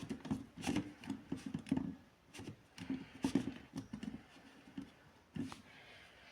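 Irregular light knocks, clicks and rustles, like something small being handled, with a pause of about half a second near the middle.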